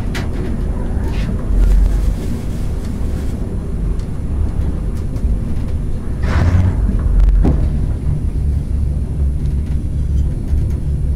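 ED9M electric multiple unit running, heard from inside the driver's cab: a steady low rumble of the wheels and running gear on the track. A few short knocks sound over it, and a brief louder rush comes about six seconds in.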